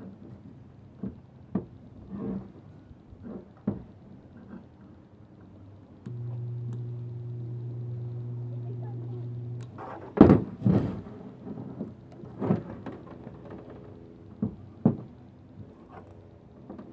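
Soldering gun buzzing steadily for about three and a half seconds, starting about six seconds in as its trigger is held to heat up, amid scattered knocks and taps of wire and tool handling, the loudest just after the buzz stops.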